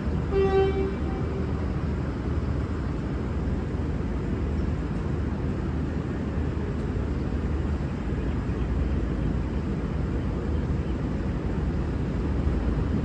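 A V/Line N class diesel locomotive gives one short low-note horn blast right at the start. Its diesel engine then runs with a steady low rumble.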